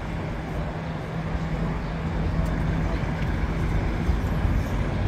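Downtown street ambience: steady traffic rumble, with a low steady hum that fades out about three and a half seconds in.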